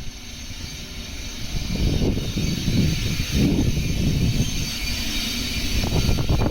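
A train of an EF81 electric locomotive hauling E231 series cars rolling along the rails: a low rumble with hiss that builds about two seconds in, and wheel knocks over rail joints near the end.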